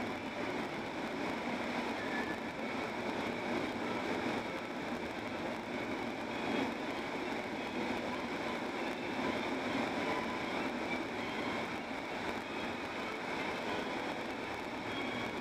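Steady road and tyre noise of a car driving at highway speed, with the engine running under it.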